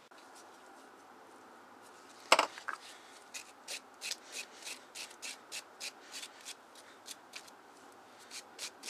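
Wire brush scrubbing rust scale and caked dirt off a Briggs & Stratton carburetor body in short scraping strokes, about three a second, starting about three seconds in. A single knock comes just before the brushing starts.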